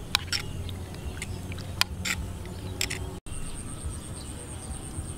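A ladle clinks and scrapes against a pot of porridge as it is stirred, giving a few sharp clicks over a low outdoor rumble. After a cut about three seconds in, a steady high-pitched pulsing tone runs through the background.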